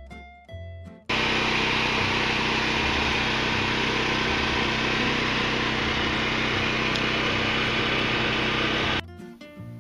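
A loud, steady machine noise, like a small engine or power tool running at a constant speed, cutting in about a second in and cutting off abruptly near the end. Acoustic guitar music plays before it and comes back after it.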